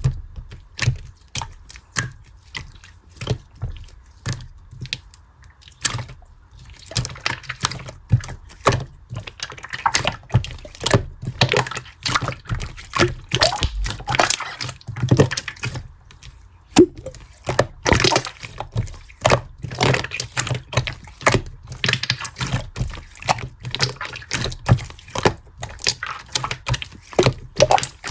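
Light green marbled slime being squished and pressed by hand, making a steady run of wet pops and clicks that grows busier and more crackly from about seven seconds in.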